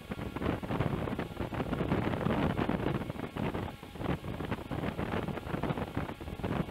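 Steady, fluttering rush of wind buffeting the microphone.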